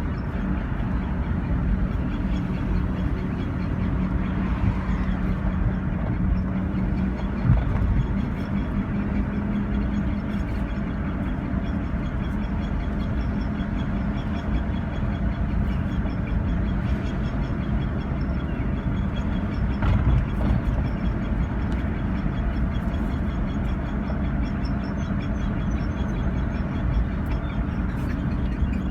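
2000 Jeep Grand Cherokee with a faint repeating high-pitched squeak over the steady rumble of the vehicle.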